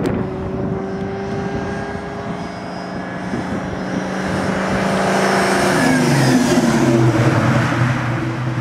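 2003 Mustang Cobra's 4.6-litre V8, boosted by a Kenne Bell 2.8H twin-screw supercharger and breathing through an aftermarket mid-pipe, catted X-pipe and cat-back exhaust, driving past. The exhaust note holds steady at first, then grows louder and changes pitch about six seconds in as the car pulls away.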